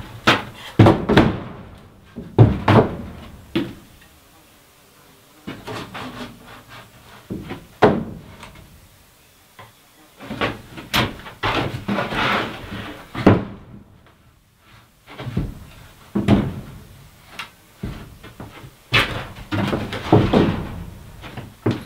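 2x4 lumber being handled: irregular wooden knocks and thuds as boards are moved and set down, with some scraping, and quieter gaps in between.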